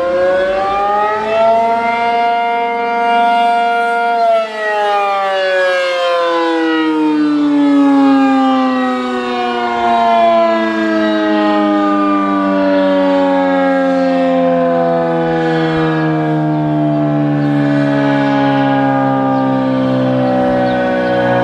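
An ACA P-50 civil defense siren winds up in pitch for about two seconds and holds a steady chord of several tones for about two seconds. It then winds down in a long, slow fall in pitch that is still going at the end.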